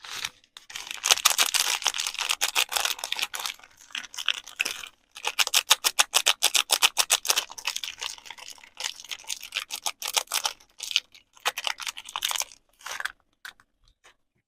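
Soap packaging being handled close up: rapid crisp crinkling and crackling of a wrapper in three long stretches, thinning to a few scattered clicks near the end.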